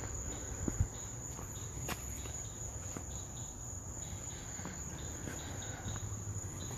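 Night insects, crickets, calling in a steady high-pitched drone, with a few faint clicks and a low rumble underneath.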